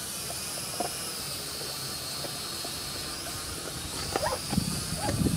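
JJRC H8C mini quadcopter's motors and propellers whining steadily and high-pitched as it flies overhead. A low rumble builds near the end.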